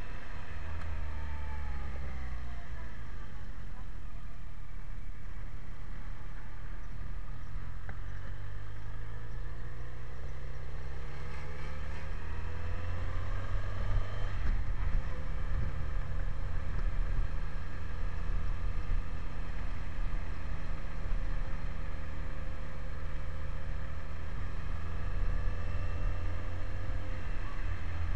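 BMW K1100LT's inline four-cylinder engine running under way. Its pitch falls as the bike slows in the first few seconds, climbs as it pulls away from about eight seconds in, then holds fairly steady.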